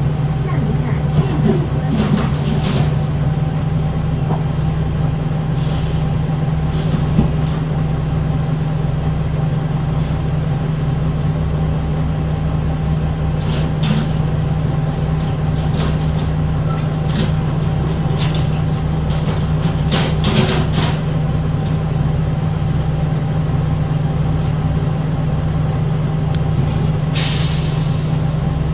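Bus with a Voith DIWA automatic gearbox running at a steady low drone, with scattered rattles and squeaks, and a short loud hiss of released air near the end.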